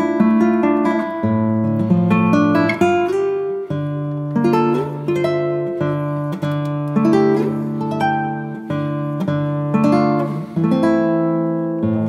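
Instrumental background music of plucked guitar notes.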